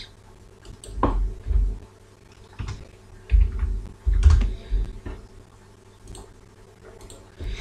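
Computer keyboard keystrokes and mouse clicks, a handful of short separate taps with dull thumps, bunched in the first few seconds.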